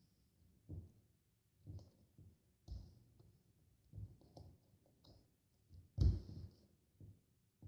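Soft, irregular clicks and light taps, about one a second, with a louder one about six seconds in.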